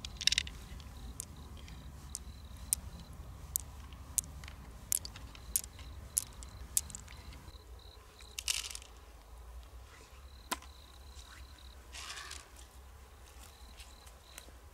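Small sharp clicks of pearls and freshwater mussel shell being handled as pearls are picked out, about one every half second to second, then stopping; a few short rustles and scrapes of shell are mixed in.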